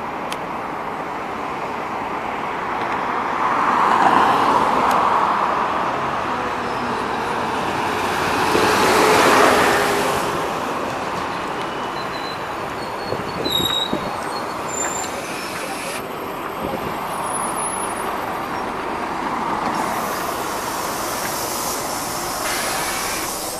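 Road traffic on a multi-lane street, with two vehicles swishing past loudly about 4 and 9 seconds in. A Scania OmniLink CL94UB city bus then pulls in and stops, with a few short high squeaks around the middle, and its doors open with a hiss of air near the end.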